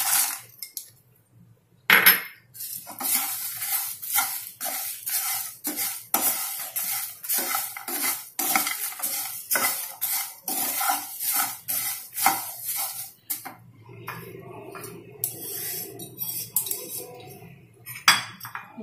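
Wooden spatula stirring and scraping a dry mix of flattened rice, fox nuts and roasted peanuts around a frying pan, in quick strokes that grow softer over the last few seconds. A brief rattle at the start as the peanuts are tipped in from a glass bowl, a sharp knock of the spatula on the pan about two seconds in, and another near the end.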